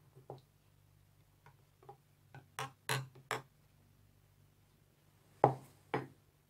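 Metal spoon clicking and tapping against a plastic cup: a run of light ticks through the first three seconds or so, then two louder knocks about half a second apart near the end. A faint low hum runs underneath.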